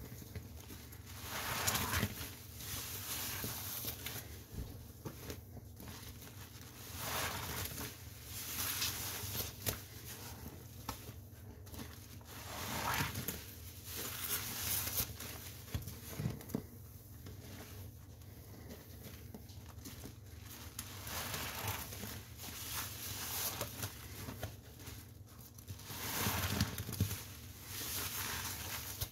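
Soapy sponge squeezed again and again, each squeeze a short rush of wet noise about every two seconds.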